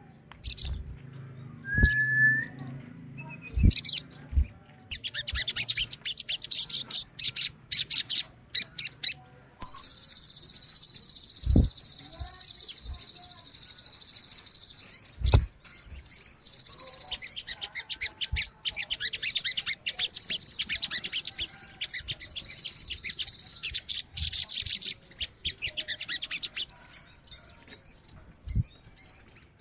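A group of sogon birds (little spiderhunters) chattering with rapid, high, scratchy chirps and trills. The calls are scattered for the first ten seconds, then turn into a dense, nearly continuous chatter, with a few low thumps.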